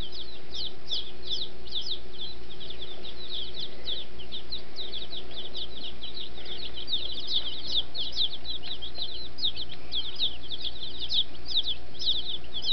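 A brood of baby chicks peeping without pause: many short, high, falling cheeps overlapping, several a second.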